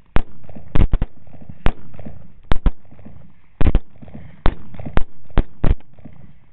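Rapid rifle fire from several shooters: about a dozen sharp shots in quick, irregular succession, some only a fraction of a second apart, each ringing out briefly afterward.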